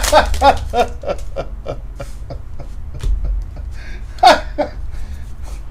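A person's voice in short throaty syllables, with scattered light clicks.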